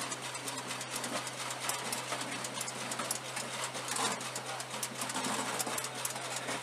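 Belt of linked 20 mm cartridges clinking and rattling as it is fed by hand into a Phalanx CIWS loader, many small metallic clicks over a steady low hum.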